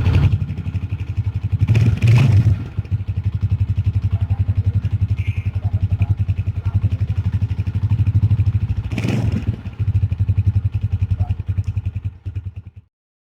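Honda CG125's air-cooled single-cylinder four-stroke engine running with a fast, even exhaust beat, louder twice, about two seconds in and again around nine seconds, with its tappets freshly set and new oil in. It cuts off suddenly near the end.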